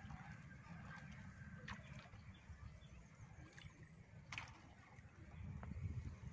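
Faint outdoor ambience of pond water stirred by people wading chest-deep, with a low rumble underneath and two brief sharp splashes, the second one louder, near the middle.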